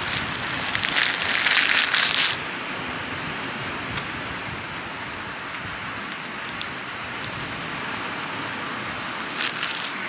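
Dry coconut husk fibres being torn and pulled apart by hand. The crackling rustle lasts about two seconds at the start and comes again near the end, with a few single snaps in between, over a steady hiss.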